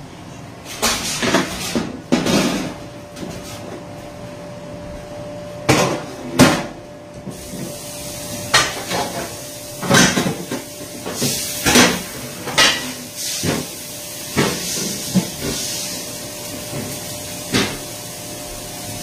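Dishes and a pan knocking and clattering in a stainless-steel kitchen sink, about a dozen sharp irregular knocks, with tap water running from about seven seconds in.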